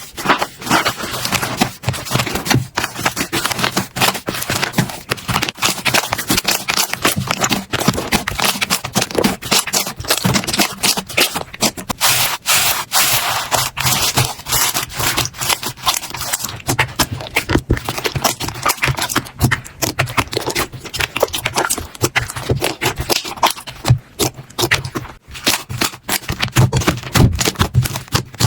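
Slime being squeezed, pressed and stretched by hand: a continuous, dense run of sticky clicks, crackles and small pops.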